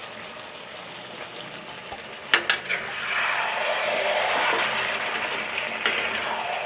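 Chicken curry with masala sizzling in an aluminium kadai, its meat juices frying down. About two seconds in, a metal spoon clinks twice against the pan, and stirring then sets off louder sizzling with scraping and clicks.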